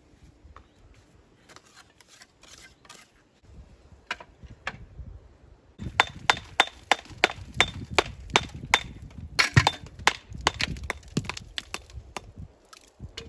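A run of sharp hammer strikes on stone, about three a second with a slight ring, after a few lighter knocks: stone being dressed or broken.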